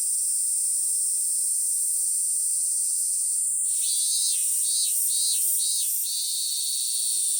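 Summer insect sound effect: a steady high-pitched insect drone. About three and a half seconds in, a pulsing call of about five beats joins it, then settles into a steady buzz.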